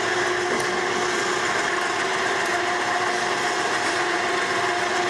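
12-volt electric winch running steadily with a constant motor whine, paying out its cable to lower a hinged propane cart rack from the truck bumper.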